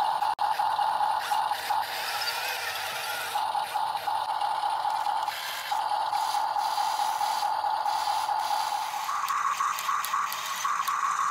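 Toy remote-control excavator's small electric motors whining with a clicking, rattling gear train as its boom and bucket move; the whine stops and restarts a few times and shifts to a higher pitch near the end.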